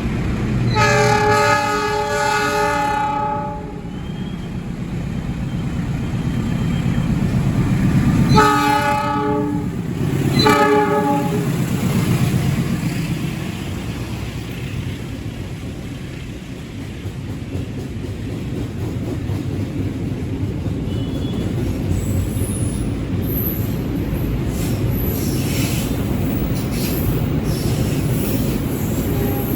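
Train horn sounding a long multi-tone blast about a second in, then two shorter blasts around eight and ten seconds in, over the steady rumble of a train running through the station. Faint high wheel squeals and clicks come in near the end.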